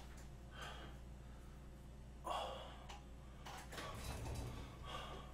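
A man's soft breathy exhalations and sighs, several short puffs with the strongest about two seconds in, over a steady low electrical hum.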